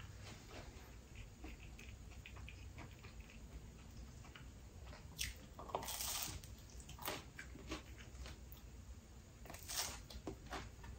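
A person chewing a slice of spinach-and-cheese pizza, with soft wet mouth clicks, and biting into the slice about six seconds in.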